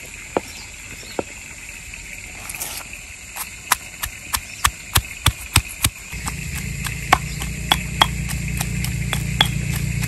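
Stone mortar and pestle pounding sliced onions, garlic and ginger: sharp knocks of the stone pestle, a couple at first, then a regular run of about two to three a second. A low steady hum joins in about halfway through.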